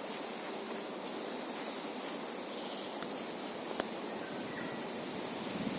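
Steady outdoor background hiss, with two sharp clicks about three and four seconds in.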